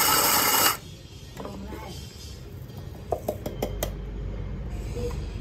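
Mini 600N electric coffee grinder running loud while grinding beans at setting 3, then cutting off under a second in. About three seconds in come a few sharp knocks as its plastic grounds cup is tapped out onto paper.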